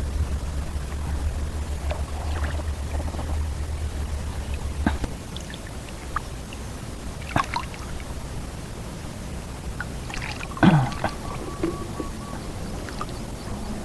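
Shallow water trickling and splashing around a wading angler, with small clicks and one sharper splash about two-thirds of the way through.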